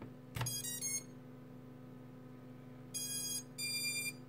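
Click of the XT60 battery connector being plugged in, then the quad's brushless motors beeping the BLHeli_32 ESC startup tune: three quick notes rising in pitch, and about two seconds later two longer beeps. It is the normal power-up sequence, a sign that the ESCs and power system are working.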